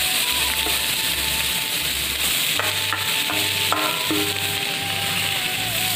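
Sliced star fruit sizzling in hot oil in a steel wok, a steady frying hiss. Background music with a repeating low beat and a thin melody plays underneath.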